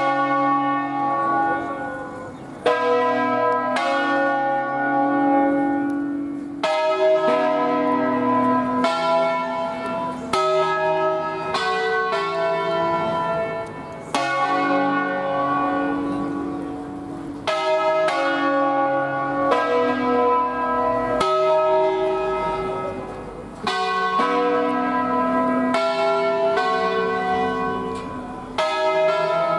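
A five-bell Ambrosian-system peal of Barigozzi-cast bronze church bells, tuned in B and swung on wheels by ropes. The bells strike in quick, overlapping succession, each note ringing on into the next. The ringing starts suddenly right at the outset.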